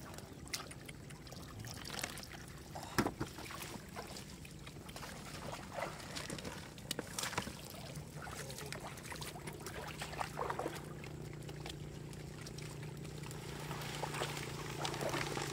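Shallow muddy water trickling and sloshing as fish are handled at the water's edge, with scattered sharp clicks and rustles from a plastic mesh basket and wet grass. A low steady hum runs underneath, slightly louder in the second half.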